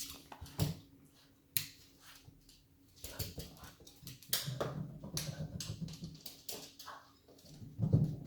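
A Boston terrier making low whining dog sounds amid sharp clicks and knocks. The first two seconds hold a few isolated clicks; from about three seconds in the sounds come thick and fast, loudest near the end.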